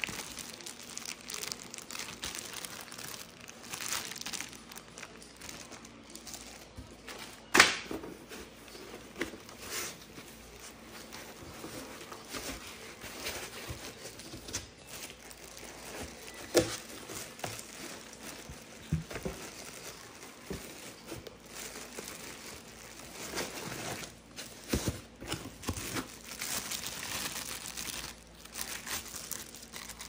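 Thin plastic packaging bags crinkling and rustling as vacuum cleaner parts and a brush attachment are handled and unwrapped, with scattered knocks and scrapes of cardboard and foam packing. One sharp knock about a quarter of the way in is the loudest sound.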